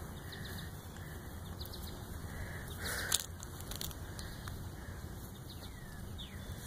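Rustling and bumping of a handheld phone against skin and clothing, over a low steady rumble, with scattered clicks and one sharp knock about three seconds in. A few faint, short, high falling chirps sound now and then.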